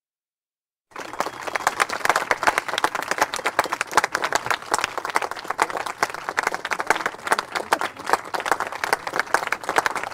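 About a second of silence, then a large crowd's applause starts abruptly: dense, steady clapping from many hands.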